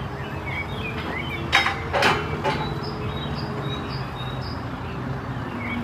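Diesel engine of a JCB telescopic loader running steadily, with three short knocks around two seconds in. Birds chirp faintly in the background.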